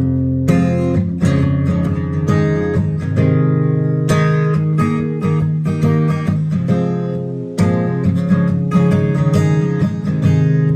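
Acoustic guitar strummed in a song's intro, chords struck in a steady rhythm.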